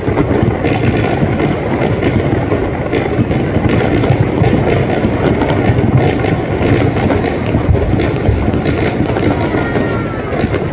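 Fireworks display going off in rapid succession: a dense run of sharp cracks and bangs over a continuous rumble.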